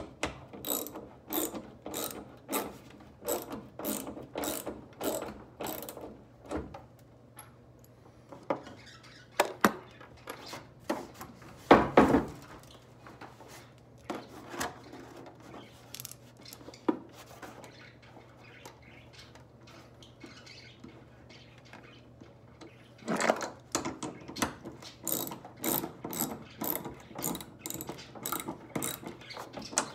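Hand socket ratchet wrench clicking in even strokes, about two a second, as it turns a fastener into a plastic jug. The ratcheting pauses in the middle, where there is one loud knock, and starts again near the end.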